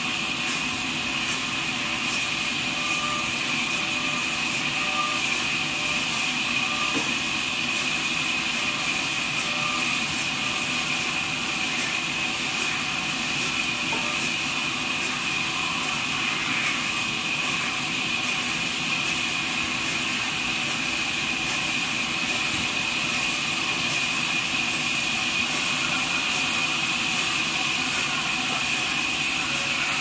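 Horizontal band saw of a trolley sawmill running and cutting through a log, a steady whine over constant machine noise.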